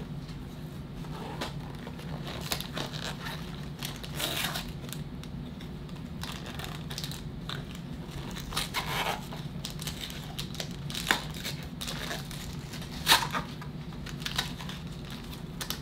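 Plastic trading card pack wrappers being handled and torn open, crinkling in scattered short bursts, over a steady low hum.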